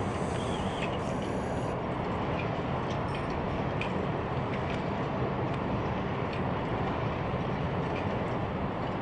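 Distant diesel passenger train running across a steel cantilever railway bridge: a steady low rumble with an even hiss over it.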